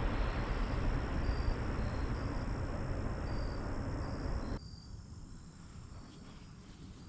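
Outdoor background with a steady rushing noise that cuts off abruptly about four and a half seconds in, leaving a quieter background; faint, short, high insect chirps repeat throughout.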